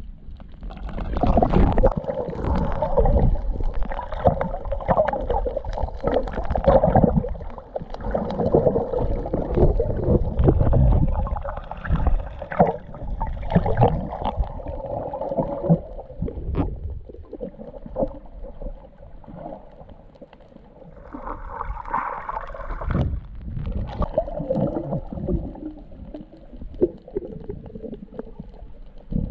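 Muffled underwater water noise picked up through a submerged action camera: irregular gurgling and low rumbling of water moving around the camera as the swimmer moves along the seabed. It is busier in the first half and eases off after about sixteen seconds.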